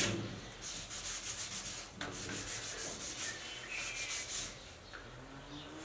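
Hand-sanding a dried sealer coat on a wooden drawer front with 400-grit sandpaper, in quick back-and-forth scratchy strokes that stop about four and a half seconds in.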